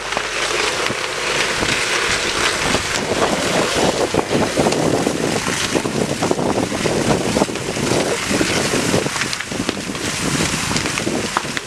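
Steady rushing noise of a large barn fire being hosed down with water jets, with irregular crackling and wind buffeting the microphone.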